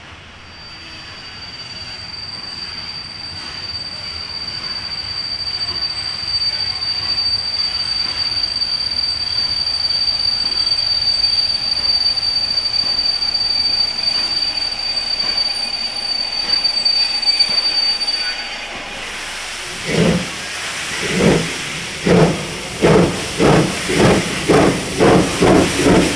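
Pt47 steam locomotive and its passenger train, the rolling noise growing louder with a thin, high, steady squeal that cuts off after about eighteen seconds. About twenty seconds in, the locomotive's exhaust starts chuffing, slowly at first and then quicker and quicker as it gets under way.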